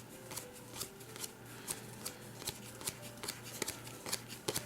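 Tarot-size game cards being thumbed through by hand, a quick irregular run of soft clicks and slides, several a second.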